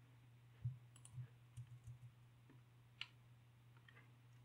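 Faint computer keyboard and mouse clicks: several short, scattered clicks, the loudest a little under a second in, including Tab key presses that toggle Blender's edit mode to update the viewport render. A steady low hum lies underneath.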